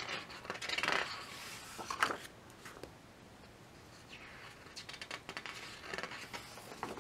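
A heavy page of a large hardcover photobook being turned and handled: a paper rustle about a second in, a sharp tap around two seconds in, then faint light ticks as the open book is held.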